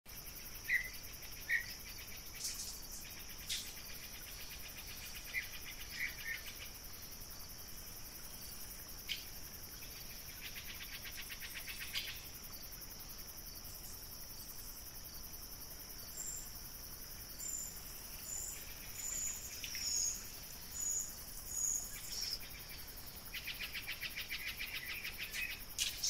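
Evening forest ambience: a steady high-pitched insect drone with stretches of fast insect trilling, a few short chirps near the start, and a series of about seven brief high bird notes in the second half.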